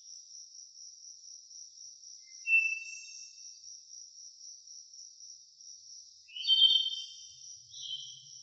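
Crickets chirping in a steady, high, pulsing trill, with a bird calling over it: a short whistled note about two and a half seconds in, then a louder run of notes about six seconds in and another near the end.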